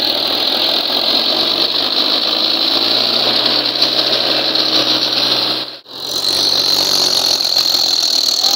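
Mahindra tractor's diesel engine labouring under a heavy load, pulling a loaded sand trolley hard enough to lift the front wheels. It runs steadily, breaking off for a moment about six seconds in, then carries on.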